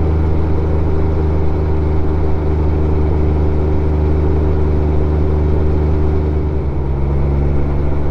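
Honda Gold Wing GL1500's flat-six engine running steadily under way, its note dropping slightly in pitch about two-thirds of the way through.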